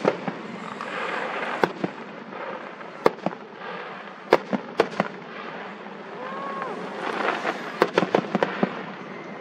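Fireworks going off: single sharp bangs every second or so, then a quick run of crackling pops near the end.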